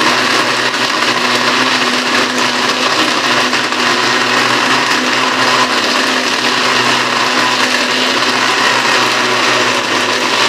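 Countertop electric blender running steadily at full speed, its motor giving an even high whir as it blends a thin plum-and-cherry drink.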